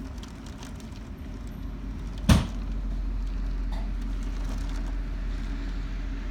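Steady low rumble of storm wind and surf, with one sharp bang about two seconds in; the rumble grows louder after it.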